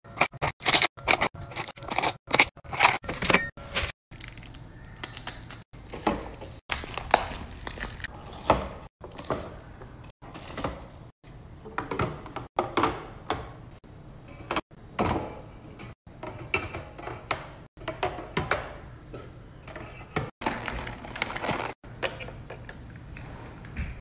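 Drink cans, food packs and squeeze pouches being set down and slid into clear plastic fridge organiser bins: irregular clacks, knocks and scrapes of aluminium and plastic. They are densest in the first few seconds and carry on over a low steady hum.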